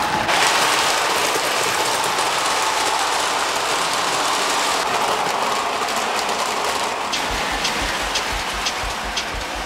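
Model electric train running on metal track: a steady rushing rumble of wheels on the rails. From about seven seconds in, regular clicks come about two to three a second as the wheels cross rail joints.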